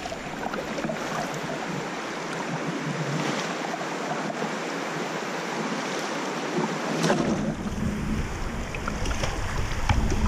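River water rushing and splashing around a paddled kayak's hull, with a few sharper splashes. Wind buffets the microphone from about three quarters of the way through.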